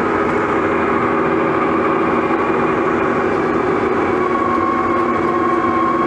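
Case 1150M crawler dozer's diesel engine running steadily as the machine tracks forward over the dirt lot, heard from the cab. A higher whine grows louder about four seconds in.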